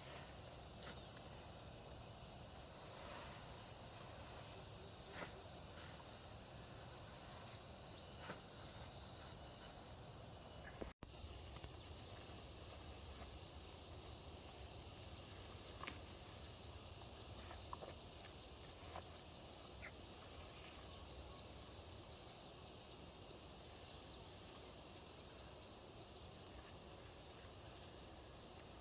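Steady, high-pitched chorus of insects chirring, with scattered faint clicks and taps. It cuts out for an instant about eleven seconds in.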